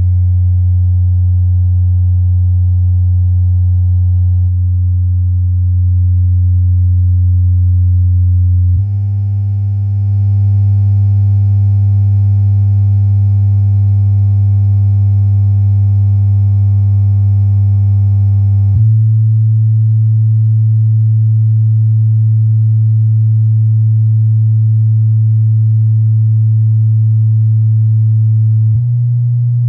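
MTX subwoofer, driven by a monoblock amplifier bridged to 2 ohms, playing loud steady low test tones. Each tone is held about ten seconds before it jumps to a new bass pitch; this happens three times.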